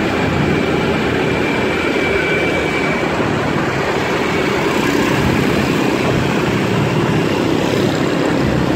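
Steady, unbroken vehicle and road noise while moving through city traffic: engine and rushing air blended into one dense rush.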